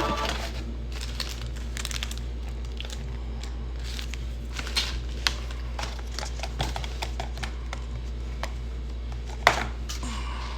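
Paper food wrappers and bag crinkling and rustling as fast-food is unpacked, with irregular small clicks and one sharper snap near the end, over a low steady hum.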